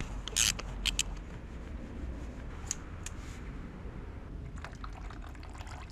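Ratchet and extension working the two 8 mm bolts of a KTM EXC 500's oil filter cover: scattered metallic clicks and scrapes, a few near the start and a quick cluster near the end, over a steady low rumble.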